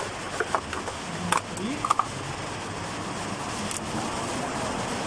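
A few light clicks and rattles in the first two seconds, from hands working at a car's fuse box, then a steady background hiss.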